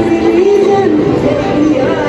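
Loud dance music with a sung vocal, played through a sound system for a cheer dance routine.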